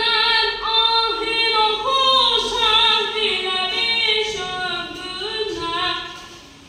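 A boy's high, unbroken voice singing a long phrase of held notes that slide from pitch to pitch, fading near the end.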